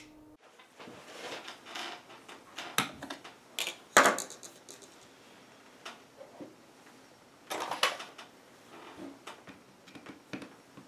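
Scattered metal clicks, taps and knocks as an Umarex Colt SAA Peacemaker CO2 revolver is handled and set down on a cloth-covered table, with a sharper knock about four seconds in. A screwdriver is worked at the grip near the end.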